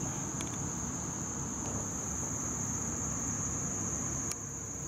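Insects calling in a steady, high-pitched chorus that holds one pitch, over a low, dense rushing noise. A click comes about four seconds in, after which the rushing gets a little quieter.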